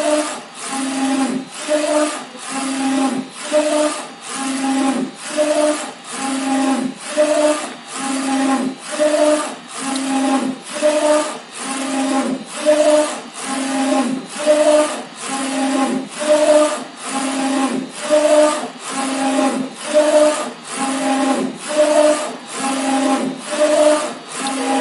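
A2 UV flatbed printer's print-head carriage moving back and forth, each pass a steady motor hum with a short pause at the turn, a bit more than once a second, near the end of a print job. It stops suddenly at the end as the print finishes.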